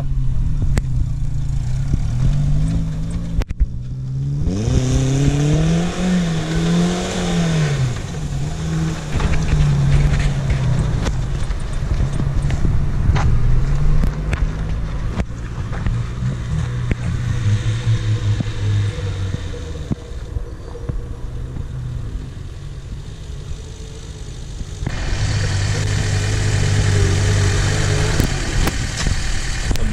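Off-road SUV engines running and revving, the engine pitch rising and falling several times a few seconds in, over a steady hiss. The sound changes abruptly twice, where the footage is cut between takes.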